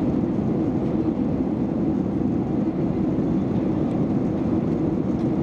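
Steady, low cabin noise of an aircraft in cruise flight, engine and airflow rush heard from inside the passenger cabin, unchanging throughout.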